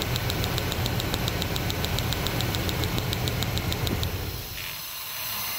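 V8 engine idling with a coil-on-plug spark tester snapping in step, about seven sharp ticks a second, as the ignition coil fires across the tester's gap; about four seconds in both stop as the engine is shut off. The coil's spark is a little uneven but judged acceptable.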